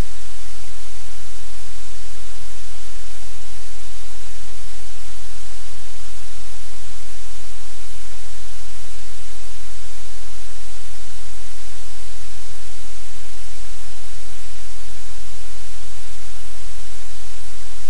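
Loud, steady static hiss with a low hum beneath it, unchanging throughout; no other sound stands out.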